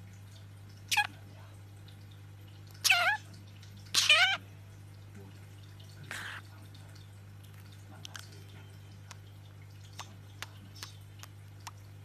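Budgie calling: a short call about a second in, then two longer wavering calls about three and four seconds in, followed by a brief scratchy sound and a few faint clicks. A steady low hum lies underneath.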